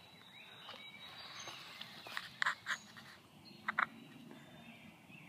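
Turkey clucks: two pairs of short, sharp notes, the first pair about two and a half seconds in and the second about a second later, over faint outdoor background.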